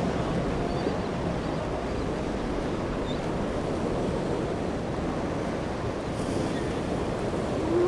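Wind buffeting the microphone over rushing waves and surf, with a boat engine running low underneath.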